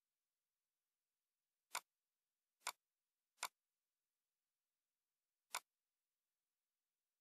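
Four sharp computer mouse clicks, irregularly spaced, against near silence.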